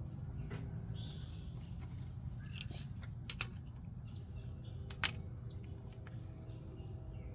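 A bird chirping repeatedly in short falling notes, one every second or so, over a steady low hum. A few sharp clicks cut in, the loudest about five seconds in.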